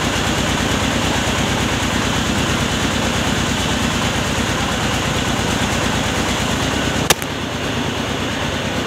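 Mobile rice mill running steadily: its engine and hulling machinery make a continuous mechanical drone with an even low pulsing. About seven seconds in there is a single sharp click, after which it is slightly quieter.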